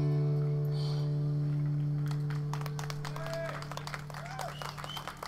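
An acoustic guitar's final strummed chord rings out and slowly fades at the end of a song. From about two seconds in the audience breaks into applause, with a few short calls from the crowd.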